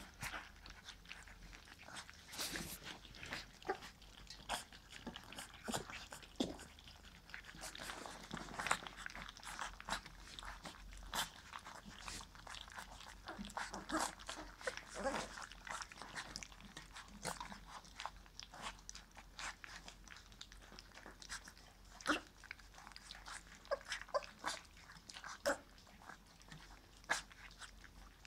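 A litter of weaning puppies eating soft mush from a shared feeding pan for the first time: a busy, irregular run of small lapping, smacking and chewing sounds.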